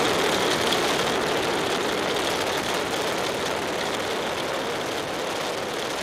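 Steady rushing motor-vehicle noise, slowly fading.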